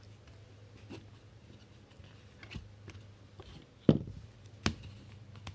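Trading cards being handled and sorted by hand: soft slides and a few light taps, with two sharper taps close together about four seconds in, over a low steady hum.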